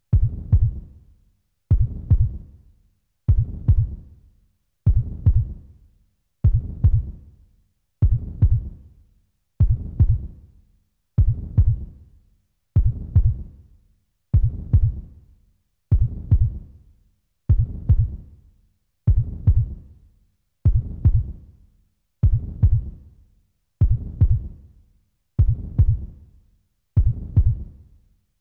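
Low double thumps in a heartbeat rhythm, a lub-dub pair about every second and a half, repeating steadily and each pair dying away before the next.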